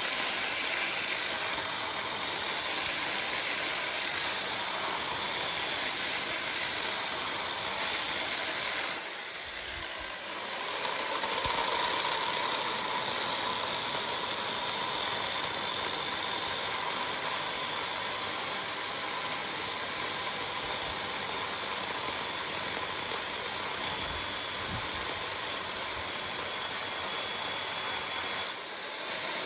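A power tool running steadily with a hissing, high-pitched noise, dropping off briefly about nine seconds in and again near the end before picking up again.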